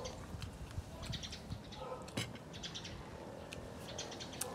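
Small birds chirping in short, quick high-pitched clusters, repeated several times. There is a single sharp click about two seconds in.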